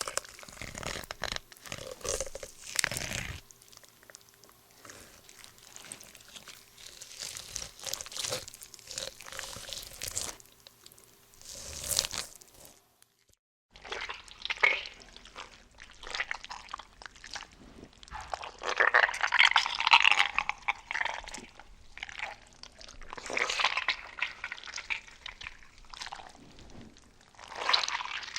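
Stock blood-and-gore sound effects played one after another: wet, liquid splatter and crunching, broken by a brief silence about thirteen seconds in.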